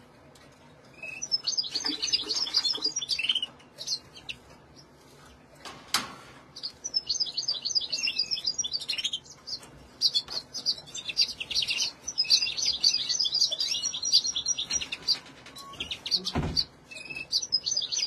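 Caged finches singing in fast, twittering phrases of high notes, several bursts with short pauses between. A sharp knock about six seconds in and a low thump near the end.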